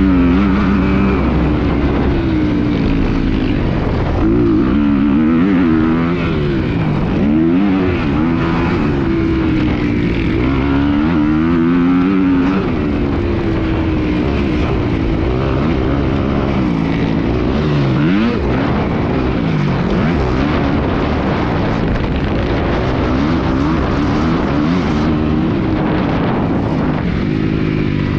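Motocross dirt bike engine revving hard and backing off over and over, its pitch rising and dropping every second or two as the throttle is worked.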